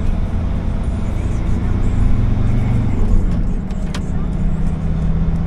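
Engine of a converted ex-ambulance van running while driving, heard from inside the cab as a steady low hum. The engine note shifts about three seconds in, and a single sharp click comes about a second later.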